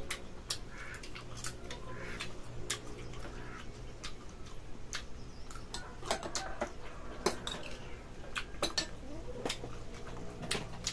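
Metal spoons clinking and scraping against small bowls and a metal serving tray during a meal: scattered sharp clicks at irregular intervals, over a faint steady hum.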